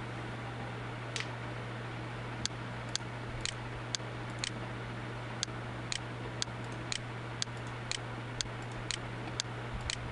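Sharp, evenly spaced ticks, about two a second, starting about a second in, over a steady low hum and hiss.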